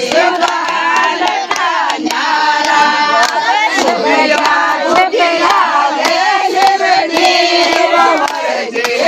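A group of women singing a Rajasthani folk song together, many voices at once, with hand claps throughout.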